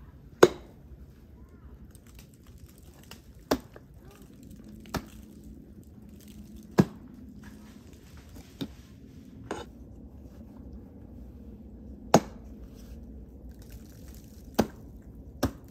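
Ice axe picks and crampon front points striking thin ice: about nine short, sharp taps at uneven intervals, the loudest near the start, around the middle and about three quarters through. The kicks are light, single taps so the thin ice is not knocked off.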